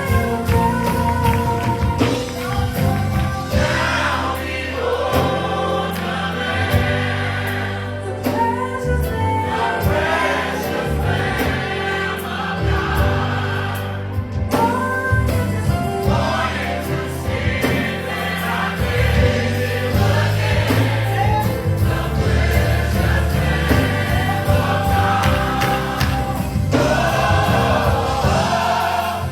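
A gospel choir singing with band accompaniment and a steady bass line.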